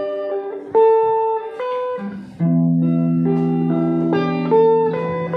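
Live band playing an instrumental passage with electric and acoustic guitars, no singing: a melody of held notes changing every half second or so over a sustained low note.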